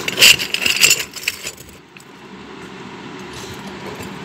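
Brass oil lamps clinking against one another and against clay lamps as they are picked up and shifted in a box: a quick run of bright metallic clinks in the first second and a half, then only faint handling.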